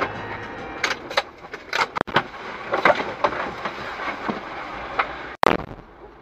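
Car and traffic noise with a string of sharp, irregular clicks and knocks, the loudest about five and a half seconds in.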